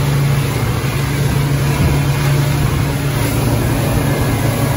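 Outboard motor driving a small fishing boat at speed, running steadily, with the rush of water and wind over the hull.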